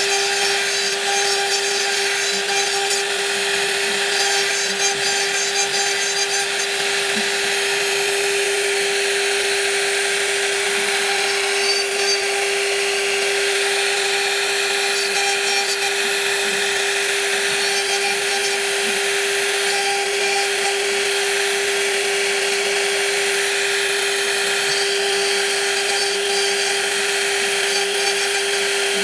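A power woodworking machine running steadily and cutting wood: a constant motor hum under an even hiss of cutting.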